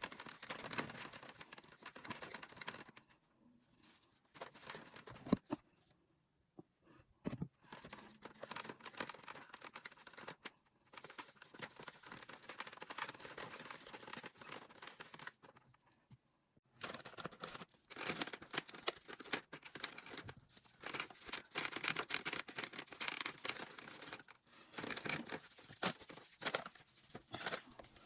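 Irregular rustling, crinkling and scraping handling noises with scattered small clicks, stopping briefly a few times. No motor is running.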